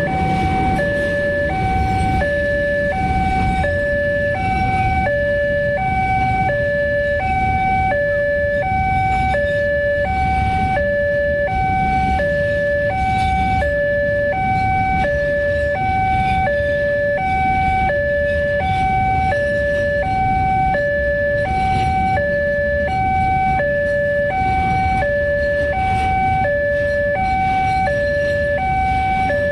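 Railway level-crossing warning alarm sounding a steady two-tone hi-lo signal, the pitch switching about once a second, warning that a train is approaching and the crossing is closing. A low rumble runs underneath.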